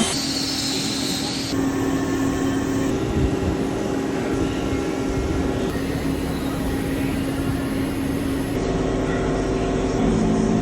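Metalworking machine, likely the CNC machine under repair, running with a steady mechanical whir and low humming tones. The sound changes abruptly several times, every two to three seconds.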